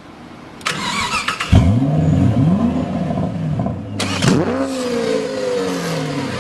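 A Fiat car's engine is cranked and catches about a second and a half in. It is revved up and falls back a couple of times, then settles to a steady idle, and is revved again about four seconds in.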